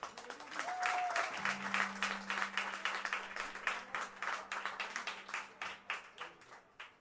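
Small audience applauding after a band's song, the separate claps thinning out and fading toward the end, over a low steady hum.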